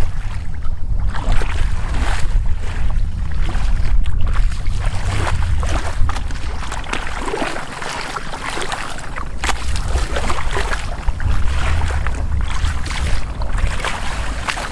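Shallow muddy water splashing in irregular strokes as a person wades through it, with wind rumbling on the microphone.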